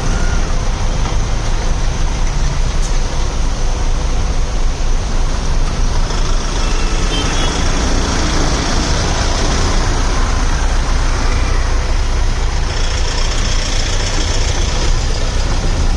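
Steady road traffic noise: vehicle engines running with a continuous heavy low rumble.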